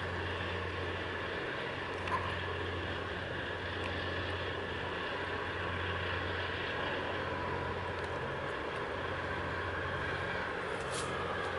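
Steady low drone of ship engines under way, a deep even hum with a hiss above it.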